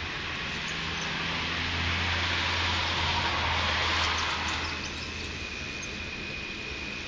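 A car passing on the road, its tyre and engine noise swelling to a peak about four seconds in and then fading. Under it runs steady background noise from the nearby dam.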